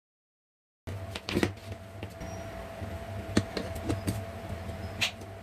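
Handling noise: a few sharp clicks and knocks as hands move a phone charger and its cable on a plastic switch board, over a steady low hum.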